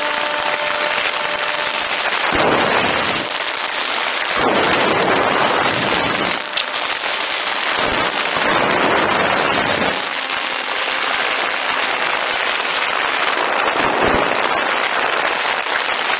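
Wind rushing over the onboard camera's microphone on a Volantex Ranger 2000 FPV plane in flight. The steady roar swells into deeper gusts several times, about 2, 4, 8 and 14 seconds in.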